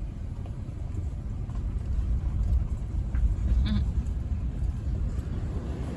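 Steady low road rumble of a car heard from inside the cabin while driving, with a brief squeak a little past halfway.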